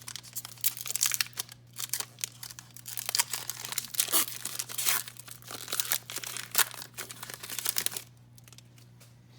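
Hockey trading card pack wrapper being torn open and crinkled, a dense crackling that stops abruptly about a second before the end.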